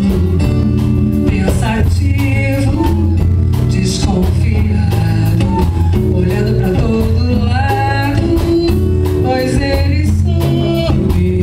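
Live band music: a steady beat over strong bass notes, with a wavering melody line on top.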